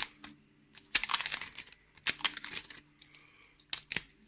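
Crinkly wrapping being torn and peeled off a wrapped-up key, in two crackly bursts about a second apart, then a couple of sharp clicks near the end.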